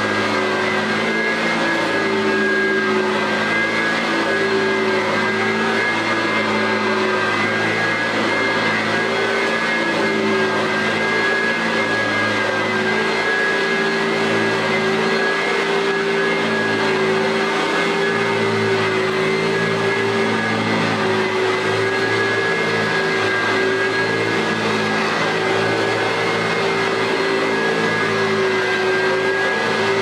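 A 1990 Eureka Model 1432 upright vacuum cleaner running steadily on carpet, its motor giving a constant whine whose pitch wavers slightly as it is pushed back and forth.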